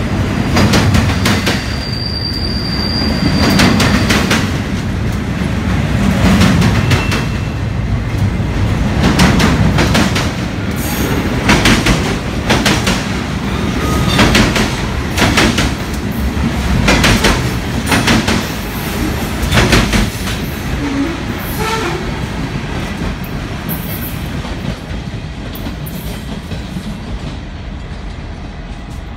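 Freight train of double-stack container well cars and refrigerated boxcars rolling past close by, its steel wheels clicking over the rail joints in a steady rhythm, with a brief thin squeal about two seconds in. The clicking fades over the last several seconds as the end of the train pulls away.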